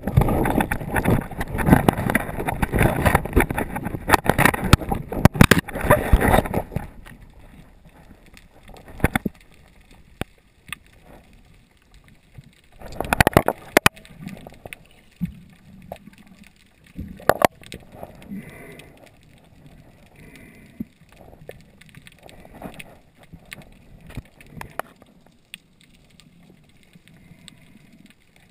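Muffled underwater noise: dense knocking and rushing for the first six seconds or so while the camera is moving fast, then faint, with scattered clicks and a short loud burst about thirteen seconds in.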